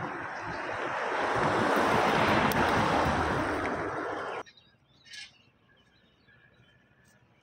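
A loud, even rushing noise swells and then cuts off abruptly a little over four seconds in. Faint bird chirps follow, with one clearer chirp about a second after the cut.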